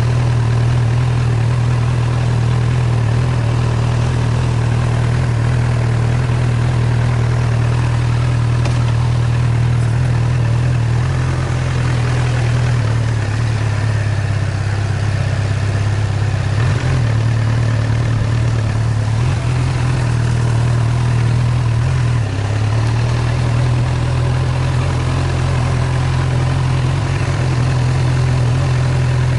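A vehicle's engine running steadily at a low hum while it drives along a dirt forest track, its pitch shifting briefly a few times.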